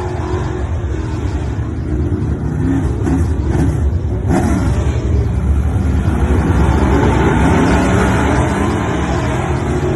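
Dirt late model race car engines running at speed, with several engine pitches rising and falling as they accelerate and lift. The sound grows louder about two seconds in.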